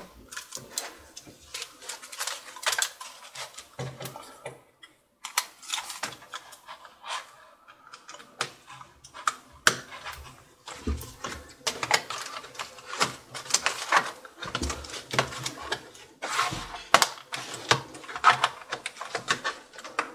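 Irregular plastic clicks, taps and light rattles of a Lenovo ThinkPad X230T keyboard being handled, reconnected and pressed down into place in the laptop's top case.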